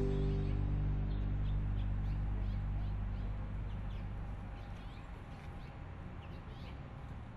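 Birds chirping over and over in short rising and falling notes, over the low held tones of the closing music dying away, the whole fading out at the end.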